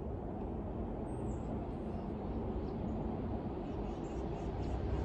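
Steady low rumble of a vehicle running, with a few faint high chirps.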